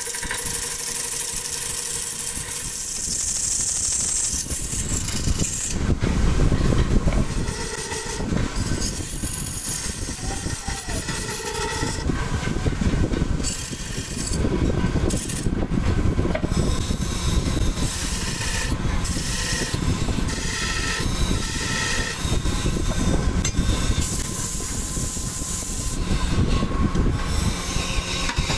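Belt-driven wood lathe running while a hand-held turning chisel cuts and scrapes the spinning wooden pot blank. The scraping comes in uneven spells over the steady machine rumble.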